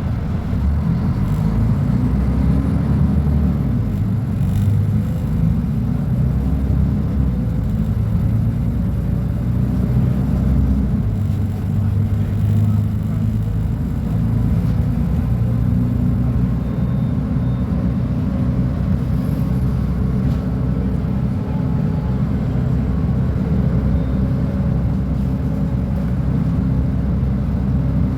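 Diesel engine of a Mercedes-Benz O500UA articulated bus running with a steady, deep rumble, its pitch shifting slightly from time to time.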